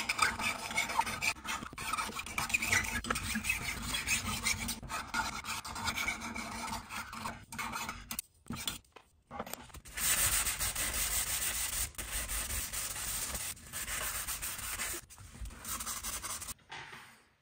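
Hand file scraping back and forth across a silver and copper mokume gane plate held against a wooden bench pin, in quick uneven strokes. After a short pause about eight seconds in, the rubbing turns steadier and hissier, then stops just before the end.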